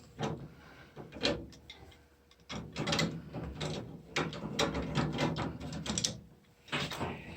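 Wrench turning a fitting on a washing machine shut-off valve: irregular clicks and scrapes, a short lull about two seconds in, then a denser run of clicking and rattling.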